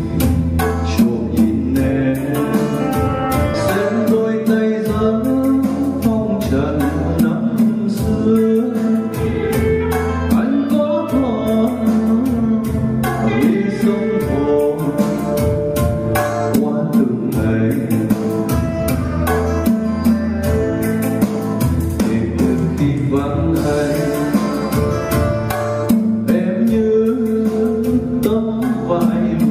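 Background music: a pop song with a steady drum beat and a singing voice.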